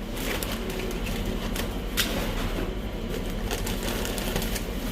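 Doritos tortilla chips being placed a few at a time onto a kitchen scale: a few light clicks and rustles over a steady background hum.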